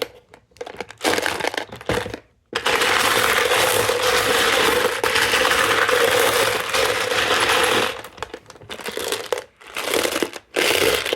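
Loose 9mm Luger brass-cased cartridges clattering in an ammo can: a few short rattles, then a long continuous jingling rattle of many rounds for about five seconds, then a few more short rattles near the end.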